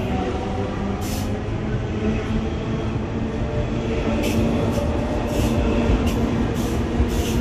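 Double-deck Sydney Trains electric suburban train moving along the platform close by: a steady rumble with motor hum. Short, sharp high-pitched sounds come every second or so, more often from about four seconds in.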